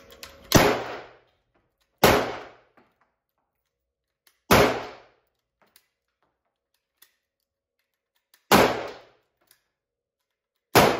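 AK-74 rifle firing 5.45×39 mm rounds in single shots: five sharp cracks at uneven intervals, with a long pause before the fourth, each followed by a short echo of the indoor range.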